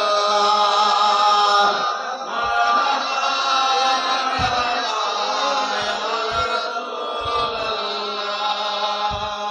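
Chanted recitation of durood (blessings on the Prophet), a voice holding long, slowly bending melodic notes.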